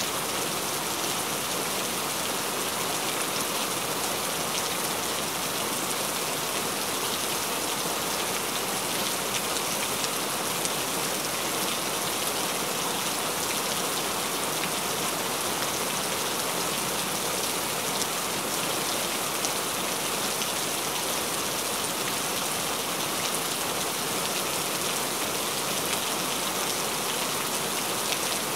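Steady rain falling: an even hiss of countless drops with small individual patters scattered through it, holding the same level throughout.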